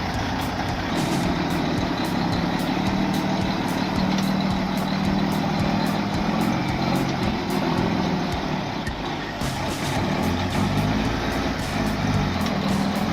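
A heavy machine's engine running steadily under working load, with frequent sharp clicks and knocks over it.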